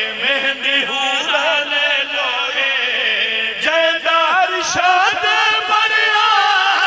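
Several men chanting a mournful devotional refrain together through microphones, with held, wavering notes; the singing grows fuller about three and a half seconds in.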